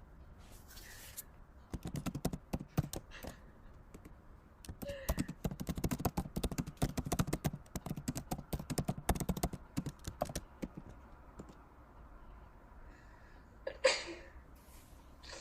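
Computer keyboard typing: rapid key clicks in two spells, a short one about two seconds in and a longer one from about five to ten seconds. A single short, loud burst near the end is the loudest sound.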